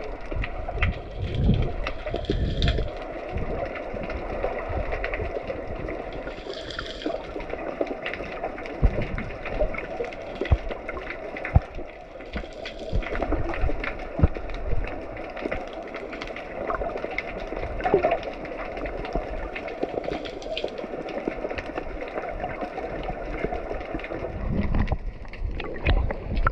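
Water sloshing and gurgling, heard muffled through a waterproof action-camera housing in the sea, with scattered knocks against the housing.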